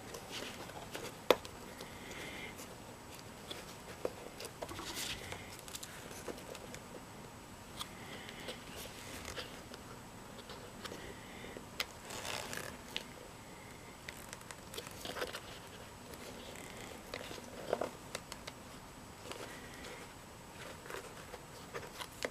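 Handling noises from leatherwork: scattered small clicks and rustles as plastic sewing clips are moved on a leather moccasin and a metal rotary leather hole punch is set on the leather edge. A sharp click about a second in is the loudest.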